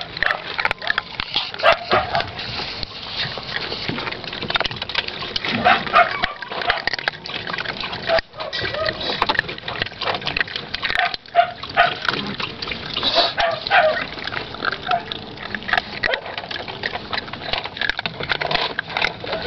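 Several puppies eating kibble together from a steel bowl: a busy, irregular run of crunching, lapping and bowl scraping, with short high squeaks now and then.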